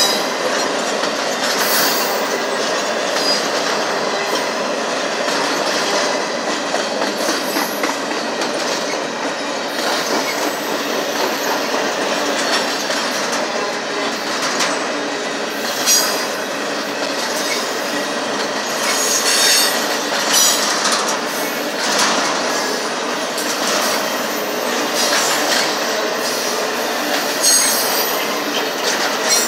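Double-stack intermodal freight cars rolling past: a steady rumble and clatter of steel wheels on the rails, with high-pitched wheel squeals now and then, most often in the second half.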